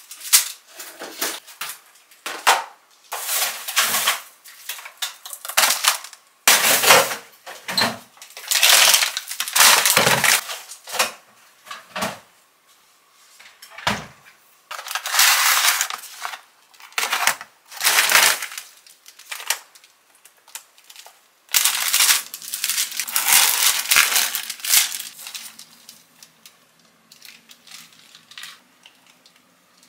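Kitchen handling sounds: plastic food packaging and containers rustling and crinkling in irregular bursts, with short knocks and clatter of items being picked up and set down.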